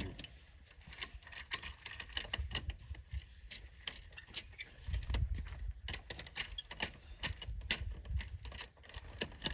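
Metal clinking and rattling: many quick, irregular clicks over a low uneven rumble that swells about halfway through.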